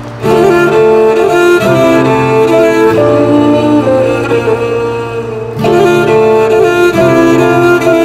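Dramatic background score of sustained string chords. A new chord swells in about a quarter second in and again a little past halfway.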